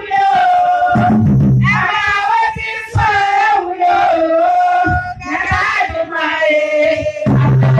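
A woman sings into a handheld microphone, amplified, in long held and sliding phrases. A low steady tone sounds under the voice briefly about a second in and again near the end.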